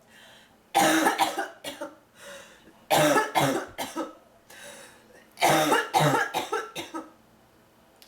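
A woman with bronchitis coughing in three fits, each a quick run of several coughs, with short pauses between.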